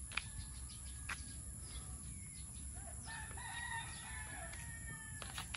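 A rooster crowing once, faint and distant, a single call of about two seconds starting a little past the middle. A sharp tap sounds just after the start, with another about a second in.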